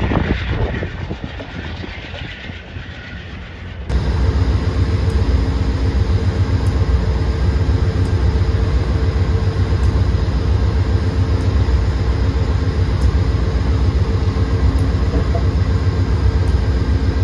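VIA Rail GE P42DC diesel locomotive No. 900 idling while standing at a platform: a steady low diesel rumble with a constant hum over it. It starts abruptly about four seconds in; before that comes the softer sound of a passenger train approaching in the distance.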